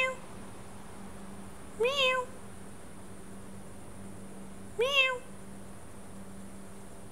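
Recorded cat meow played back, the same short meow rising and falling in pitch repeated twice, about three seconds apart, with the end of another at the very start.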